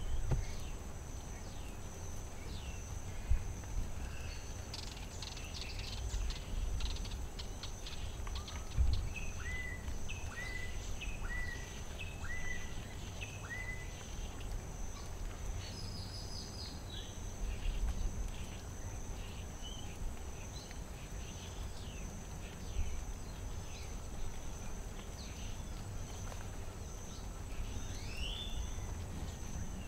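Tropical rainforest ambience: a steady high insect drone with birds chirping and calling over it. A little under ten seconds in, one bird gives a run of five short rising notes about a second apart. A low rumble runs underneath.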